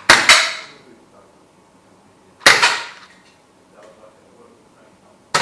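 Air gun shots, sharp cracks with a short ringing tail: two close together just after the start, one about two and a half seconds in, and another near the end.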